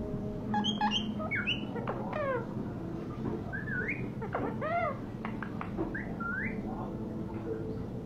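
Rose-ringed parakeet giving a run of short whistles and chirps that swoop up and down in pitch, over a steady low hum.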